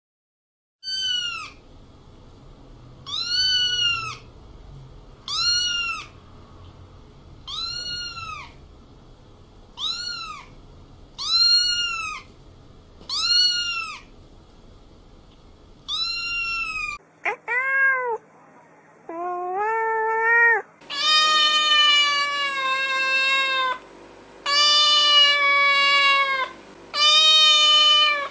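Domestic cats meowing one after another. For the first seventeen seconds a short meow that rises and falls repeats about every two seconds, then a different cat gives two shorter meows, and from about 21 seconds in a cat gives several long, drawn-out meows.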